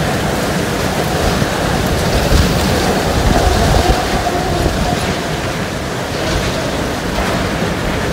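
Hurricane eyewall wind blowing as a loud, constant rush with small gusty swells, and a faint high whistle through the first half.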